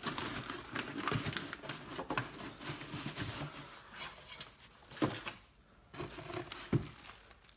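Plastic bag wrapped around a subwoofer crinkling and cardboard box flaps rustling as hands open the box and reach inside. Dense crackling for the first few seconds, then a few separate rustles.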